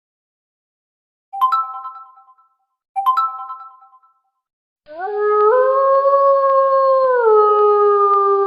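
Phone notification tone: two short bell-like chime notes about a second and a half apart, then a long drawn-out wolf howl that falls in steps.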